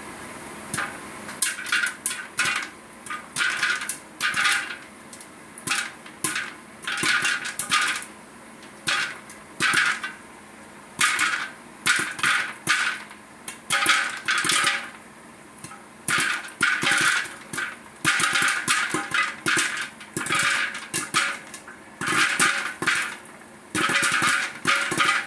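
West Bend Stir Crazy electric popcorn popper popping corn under its plastic dome: irregular clusters of sharp pops over the popper's steady hum, the popping coming thicker toward the end as the batch gets going.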